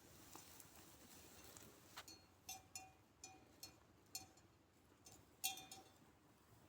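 A small metal bell on a grazing sheep clinking irregularly as the animal moves, about seven short rings in the second half, one louder than the rest.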